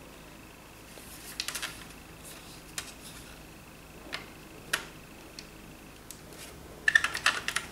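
Hard plastic toy airliner being handled: scattered light clicks and taps of the plastic body under the fingers, with a quick clatter of clicks near the end.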